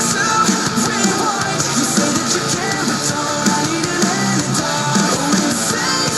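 A metalcore song with guitars and drums played back through a small Bluetooth speaker and picked up by a cheap phone microphone.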